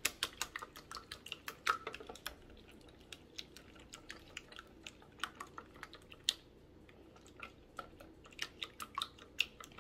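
Eggs being beaten with a small wire whisk in a bowl. The whisk taps and clicks against the bowl in quick, uneven strokes.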